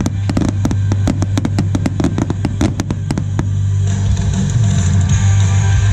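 Fireworks display with loud music and a steady bass, and over it an even run of sharp bangs, about six a second, that stops about three and a half seconds in.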